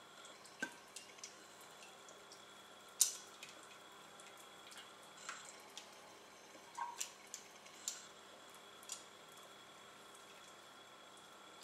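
Metal tongs and a slotted spatula clicking against a stainless steel stock pot as boiled vegetables are lifted out of the broth, with drips of liquid. The clicks are sharp and scattered, a dozen or so, the loudest about three seconds in.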